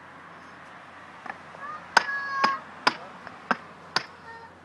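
Concrete paving blocks knocking against each other as they are set into place: five sharp clacks about half a second apart, starting about halfway through, some with a short ring.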